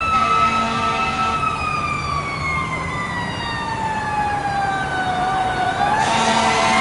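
A fire engine's siren, a KME pumper's, wailing in a long slow fall in pitch and beginning to climb again near the end, with traffic noise underneath.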